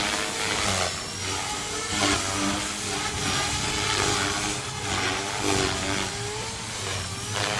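Electric radio-controlled helicopter in flight, its rotor blades buzzing and its motor whine rising and falling in pitch as it manoeuvres.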